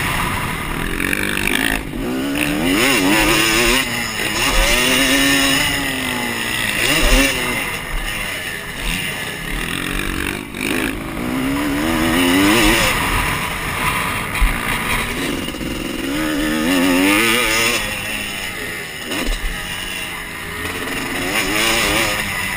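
Motocross dirt bike engine revving, its pitch rising and falling again and again as the rider opens and closes the throttle through the corners and straights of the track.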